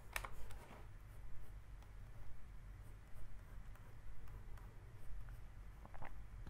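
Stylus scratching across a drawing tablet in short, separate strokes as lines are drawn, over a faint low hum.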